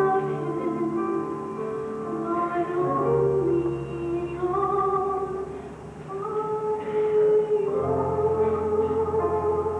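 A woman singing a slow solo into a microphone, holding long notes with vibrato, over low sustained accompaniment notes that change every few seconds.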